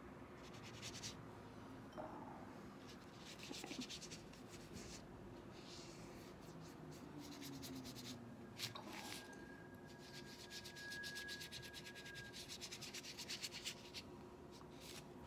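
Paintbrush scrubbing wet watercolour paint across thin paper in runs of quick repeated strokes, faint, with one sharper click a little past halfway.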